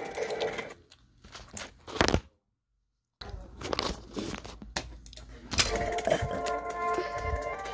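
Irregular knocks, clicks and rustling from the recording phone being handled and moved, with a brief dead-silent dropout in the middle. Background music from the monitor stops near the start and comes back about two-thirds of the way in.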